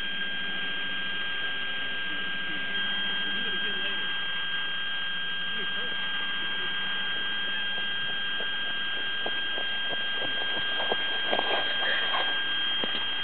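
A steady high-pitched electronic whine over a hiss, with a few faint clicks near the end.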